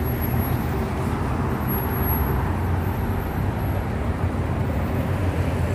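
Steady city road traffic: cars running along a busy multi-lane road, a continuous low rumble with no single vehicle standing out.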